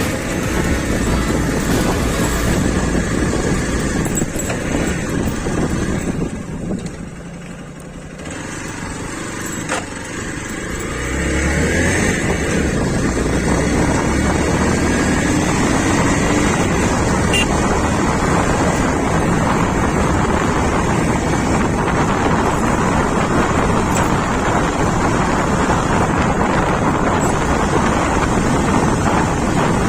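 Hero XPulse 200's single-cylinder engine running while the motorcycle is ridden, with wind buffeting the microphone. The engine eases off about six seconds in, then revs up again about eleven seconds in and holds steady.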